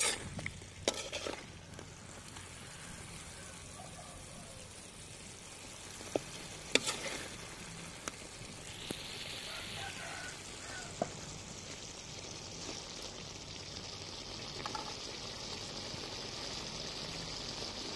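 Pork ribs and duck eggs sizzling in a metal wok, the sizzle growing louder in the second half, with a few sharp clicks and scrapes of a metal spatula against the pan.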